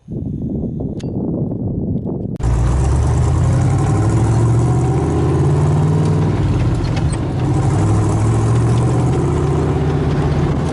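Toyota FJ40 Land Cruiser's swapped-in Chevy 350 V8 running on the trail, its pitch rising and falling with the throttle. It gets suddenly much louder about two seconds in.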